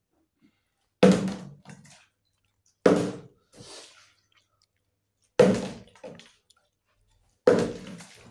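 A partly filled plastic water bottle being flipped and landing on a wooden tabletop four times, about two seconds apart, each landing a sharp thud that dies away quickly.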